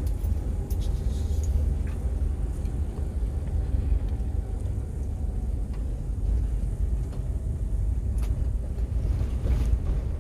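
A vehicle driving along a road: a steady low rumble of engine and road noise, with a couple of faint clicks near the end.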